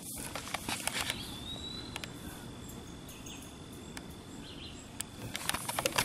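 Faint outdoor ambience under a steady high tone, with scattered clicks and rustles, a cluster about a second in and another near the end.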